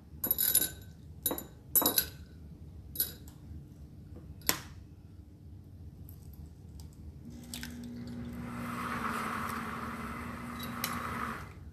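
Egg shells tapped and cracked against the rim of a small glass bowl: a handful of sharp clicks and clinks. From about seven seconds in, the Pampered Chef Deluxe Cooking Blender's motor runs steadily with a hiss for about four seconds in its sauce-mode cycle, then stops.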